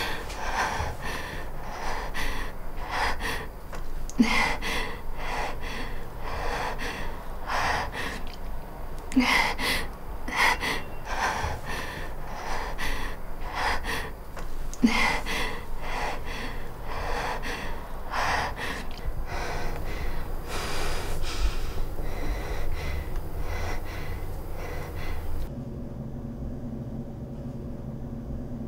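A woman breathing hard and fast, gasping breaths about once a second, as someone out of breath and struggling to catch it. Near the end the breathing stops and a low steady hum remains.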